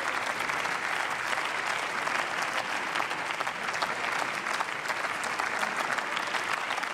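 Steady applause from a large seated group of parliamentarians, many hands clapping at once in a dense, continuous patter.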